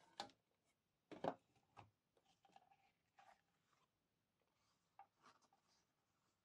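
Mostly near silence, with a few soft knocks and rustles as clear plastic die-cutting plates and card are handled on a cutting mat; the loudest is a double knock about a second in, with fainter ticks later.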